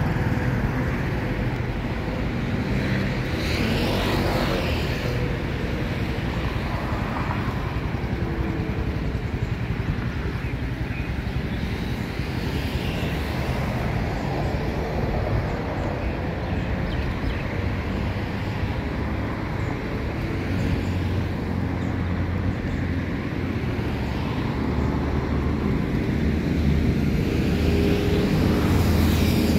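Steady low rumble of road traffic, with one vehicle passing more loudly about four seconds in.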